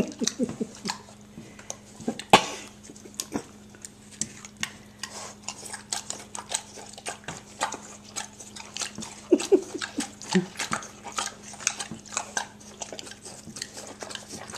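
Pigs eating ice cream: steady wet smacking and chomping made of many quick clicks, with a brief grunt at the start and another about nine and a half seconds in.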